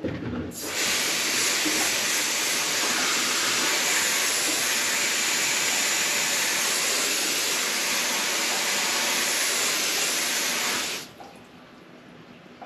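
Garden hose spray nozzle spraying water onto a vinyl boat seat panel to rinse it: a steady hiss of spray that starts about half a second in and cuts off suddenly about eleven seconds in.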